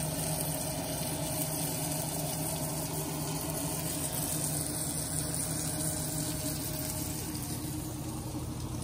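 Beyond Burger patty frying in oil in a pan: a steady sizzle, over a steady low hum.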